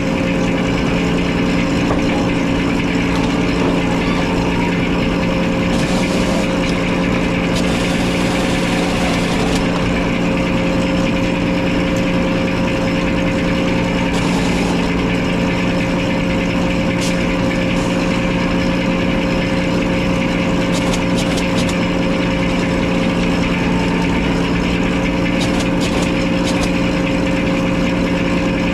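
The sawmill's engine running steadily at constant speed, loud and unchanging in pitch, with no log being cut.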